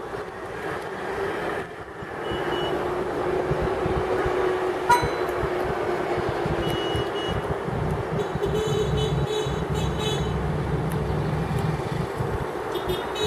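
Outdoor traffic noise: road vehicles running steadily with a low rumble swelling in the middle, a sharp click about five seconds in, and a few brief high beeps.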